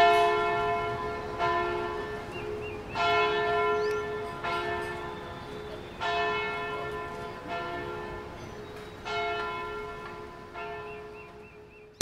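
Church bell tolling: eight strikes about a second and a half apart, stronger and weaker strikes alternating, each ringing out and fading. Small birds chirp faintly between strikes.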